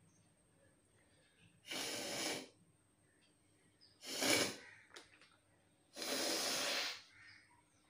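A woman sneezing and blowing her nose hard: three loud bursts of air through the nose, the middle one the sharpest and the last about a second long.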